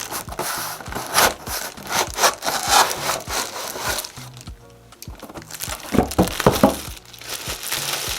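Packaging rustling and rubbing as a metal light stand is unwrapped and handled, in irregular strokes with a brief lull about halfway through, over quiet background music.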